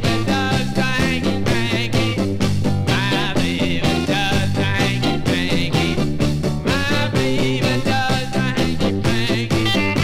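A 1966 rock and roll record played from the original vinyl LP: a band playing with a steady beat.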